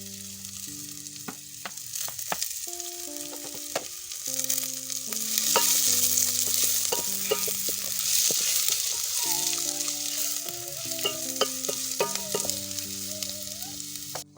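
Onion and green pepper frying in hot oil in a pan, sizzling, with scattered clicks of stirring against the pan. The sizzle swells about five seconds in.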